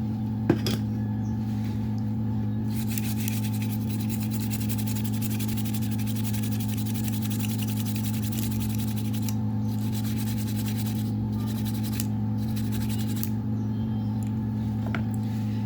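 A fine scratchy rubbing over a steady low electrical hum, as a phone's display connector is scrubbed clean. The rubbing runs for several seconds, pauses briefly, then resumes. There is a sharp click about half a second in.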